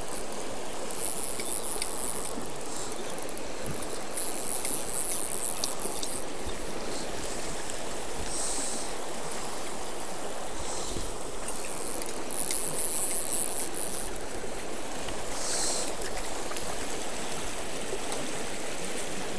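A small, rocky river flowing over rocks and riffles in a steady rush. High above it, insects chirr in spells of a second or two, on and off.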